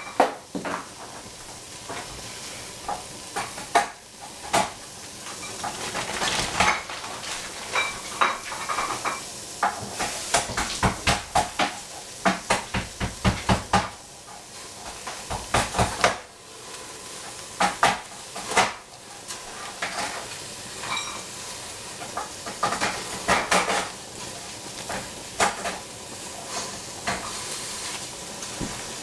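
Oyster mushrooms torn apart by hand and dropped into a hot stainless steel pot, giving many sharp clicks and taps, with a quick run of them about ten seconds in. The mushrooms sizzle steadily as they dry-sauté in the pot without oil.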